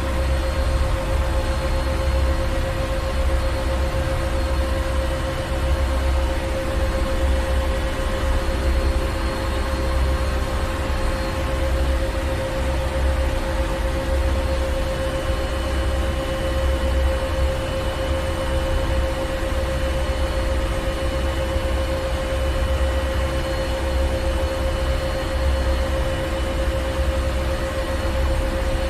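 Ship's engine room: heavy marine machinery running steadily, a deep pulsing rumble under a constant hum and a wash of mechanical hiss.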